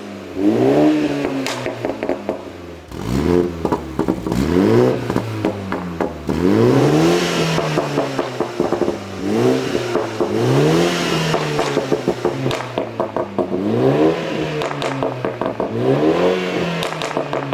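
BMW 330i's turbocharged 2.0-litre four-cylinder engine through a Scorpion stainless GPF-back exhaust with the GPF deleted, revved in short blips about eight times. Each rev climbs quickly and falls back to idle.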